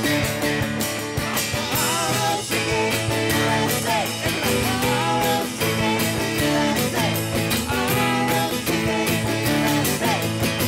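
A live rock-style worship band playing: electric and acoustic guitars, bass, drums and keyboard, with singing coming in about two seconds in.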